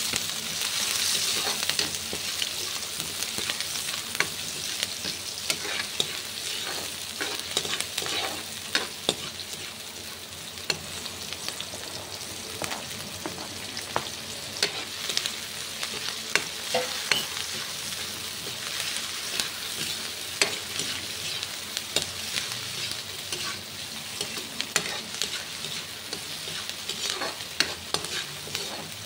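Diced onion and strips of red pepper sizzling in oil in a wok, stirred with a metal ladle that scrapes and clicks against the pan. The sizzle is loudest in the first couple of seconds.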